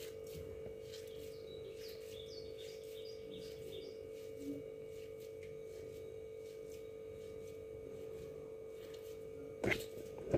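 A steady low hum runs under faint soft crackling of a crumbly semolina and ghee mixture being squeezed and rolled into laddoos by hand. A brief louder rustle comes near the end.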